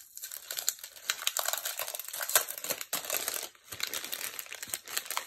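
Paper pockets and clear plastic packaging crinkling and rustling as hands handle them: a continuous crackle with many sharp little clicks.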